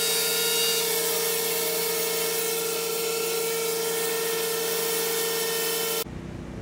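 Handheld electric power tool running steadily at speed, with a strong high whine over a hiss. It cuts off sharply near the end, giving way to a quieter low rumble.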